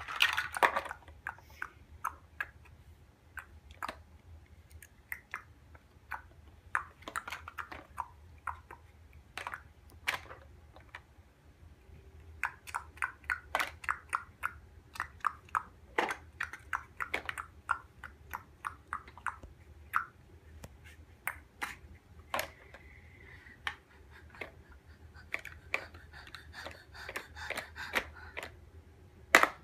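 Large plastic Mega Bloks building blocks clicking and clattering as a small child handles them and presses them together: irregular sharp clicks, with faster runs of clicks now and then.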